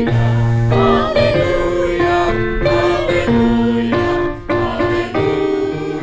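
A small group of people singing a hymn together in unison, with steady held notes underneath that sound like an accompanying keyboard instrument.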